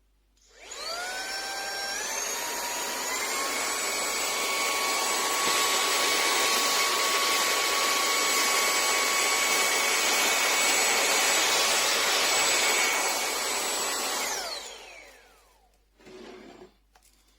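Cordless handheld vacuum cleaner switched on: the motor spins up with a whine that climbs in steps over the first few seconds, then runs steadily with a strong rush of air. About fourteen seconds in it is switched off and winds down with a falling whine.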